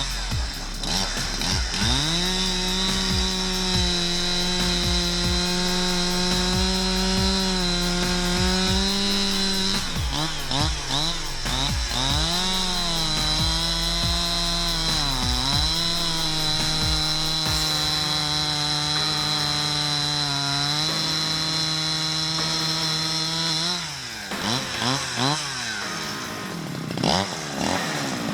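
Husqvarna 372XP two-stroke chainsaw, rebuilt with Chinese aftermarket parts, revving to full throttle and cutting wood. Its pitch sags and recovers under load in the middle, holds steady, then drops off about four seconds before the end. The owner thinks it runs lean on the high-speed (H) screw and needs tuning.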